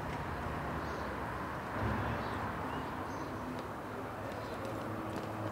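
Outdoor city street ambience: a steady low rumble with a brief swell about two seconds in, and a few faint short high chirps.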